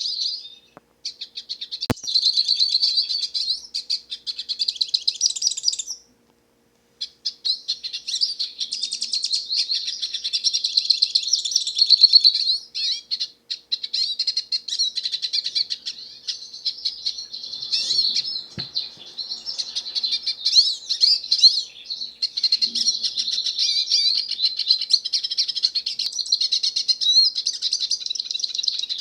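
Hooded siskin (black-headed South American siskin) singing a long, rapid twittering song, with a short break about a second in and a longer pause around the sixth second.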